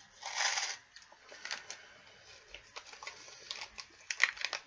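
Crinkling and crackling of a plastic snack wrapper being handled while a crunchy snack is bitten and chewed. A short noisy burst comes about half a second in, then scattered small clicks and crackles, with the loudest cluster near the end.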